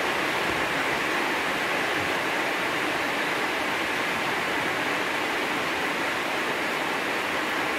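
Heavy rain on a spandek metal roof, heard from beneath through a foil sound-dampening underlayer: a steady, even hiss with no single drops standing out.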